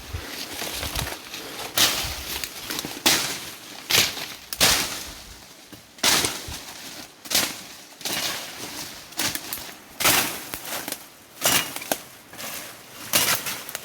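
Repeated sharp chopping strikes, about one every second or so: a machete hacking through brush and debris to clear a track.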